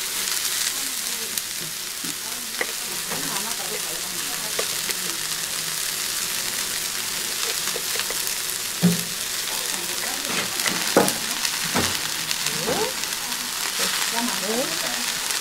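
Shredded cabbage sizzling in a hot wok as it is stir-fried, with a few sharp knocks partway through.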